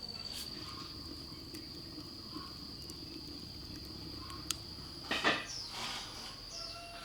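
A cricket trills on one steady high note throughout. About five seconds in come a few knocks, with short high chirps after them.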